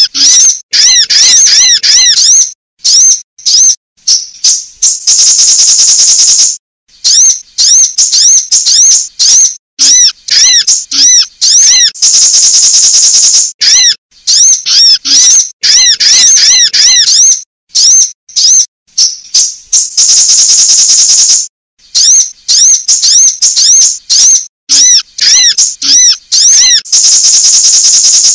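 Sunbird calls, said to be a female's, played as a looped lure recording: rapid high-pitched chirps, each arching up and down, broken about every seven or eight seconds by a longer buzzy trill, in a cycle that repeats.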